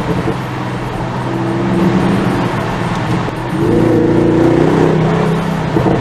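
Bentley Continental GT V8 S's 4.0-litre twin-turbo V8 with sports exhaust, pulling under acceleration, heard from inside the car. The deep exhaust note builds about a second and a half in, swells louder about three and a half seconds in, and eases back near the end.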